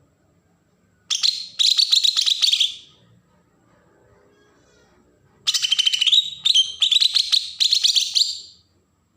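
Kalimantan green leafbird (cucak ijo) singing its fast, scratchy 'besetan' chatter, high-pitched, in two bursts: one of about two seconds starting a second in, and a longer one of about three seconds from the middle to near the end.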